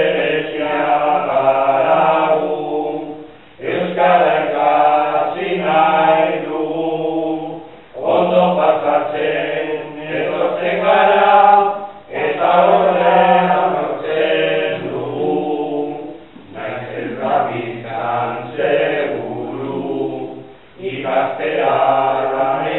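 A group of voices singing Basque verses (koplak) together in unison, line by line, in phrases of about four seconds with short breaks between them.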